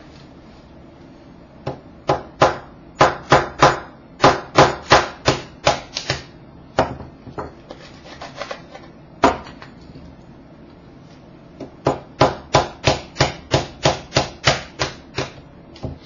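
A Rubik's cube glued solid by too much Jig-A-Loo lubricant being forced loose with sharp, hard knocks, about two to three a second. One run of knocks, a single knock about halfway through, then a second run near the end.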